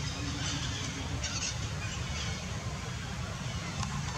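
Steady low outdoor background rumble, with a few faint, short high-pitched chirps over it.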